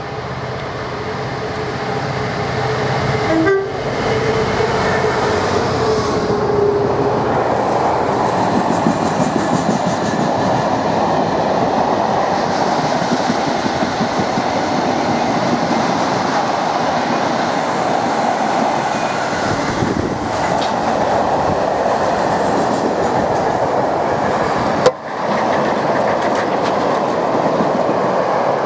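Freight train passing at speed: a loud, steady rush and rattle of wheels and wagons that builds over the first few seconds, with a brief horn note about four seconds in.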